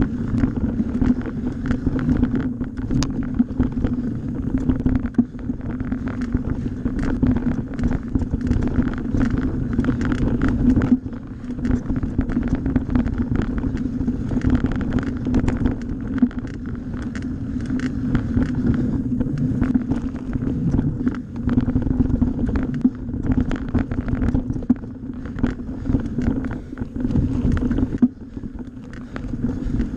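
Mountain bike ridden fast over a dirt forest trail: tyre rumble and frequent knocks and rattles as it hits bumps, under wind buffeting the action-camera microphone and a steady low hum.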